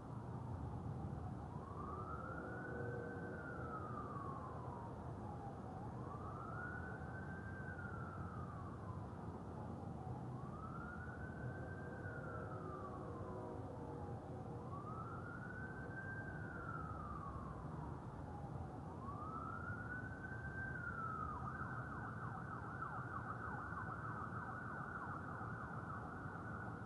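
Emergency vehicle siren in wail mode, sweeping slowly up and down about every four to five seconds, then switching to a fast yelp near the end, over steady low background noise.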